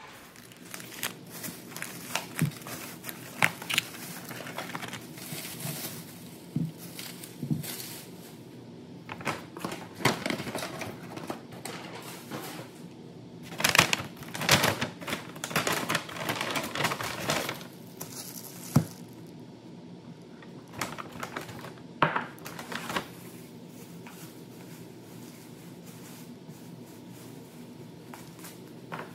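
Grocery packaging being handled on a kitchen counter: irregular clicks, taps and crinkling of plastic clamshells and paper bags, in several spells with the busiest stretch about halfway through.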